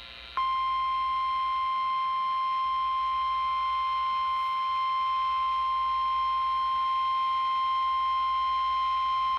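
NOAA Weather Radio 1050 Hz warning alarm tone, heard through a Midland weather radio's speaker: a single steady high-pitched beep that starts sharply about half a second in and holds for about nine seconds. The tone marks the start of a warning broadcast.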